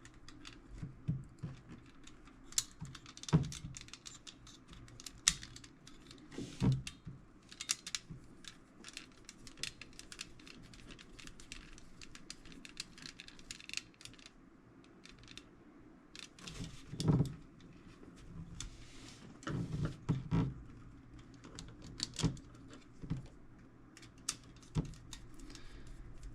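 Irregular small metal clicks, taps and rattles from hand work on a tool box drawer and its screws, with a few louder knocks scattered through.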